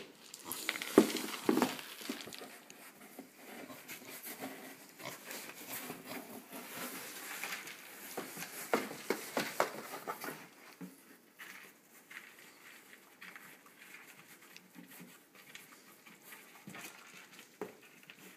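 A potbelly pig rooting and pushing into a cardboard box: cardboard knocking and scraping, with the pig's grunts. It is busiest in the first half and quieter after about ten seconds.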